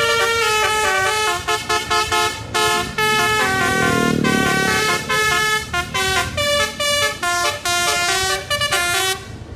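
Tour bus basuri telolet horn playing a fast melody of short, pitched horn notes that jump from note to note. A low rumble swells and fades around four seconds in.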